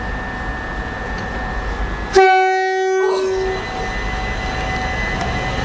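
Class 377 Electrostar electric train sounding one short blast of its horn about two seconds in, over the steady running noise of the train as it comes into the station.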